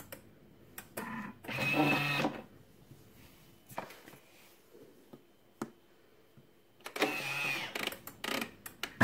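Thermomix kitchen machine in dough-kneading mode working a bread dough: the motor runs in short bursts of humming, about two seconds in and again near the end, with clicks and knocks in between.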